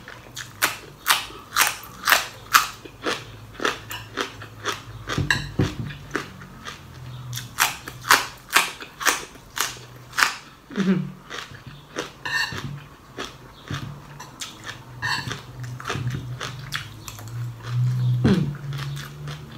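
Close-up crunching and chewing of crisp raw vegetables, with sharp crunches about twice a second that thin out after about ten seconds.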